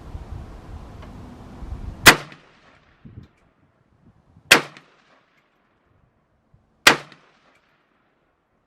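Three single shots from a PSA AK-47 rifle, evenly spaced about two and a half seconds apart, each a sharp crack with a short tail.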